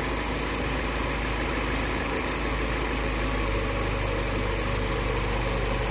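Mitsubishi 4G15 GDI inline-four engine idling steadily after a full rebuild.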